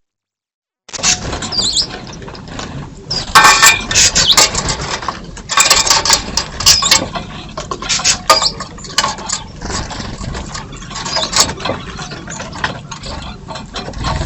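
Birds at a feeder: a busy run of sharp clicks, scratches and wing flutters with short high chirps.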